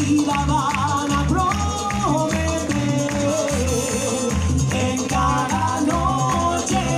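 Uruguayan murga chorus singing held notes in several voices over the murga's percussion of bass drum, snare and cymbals keeping a steady beat, heard live from the audience.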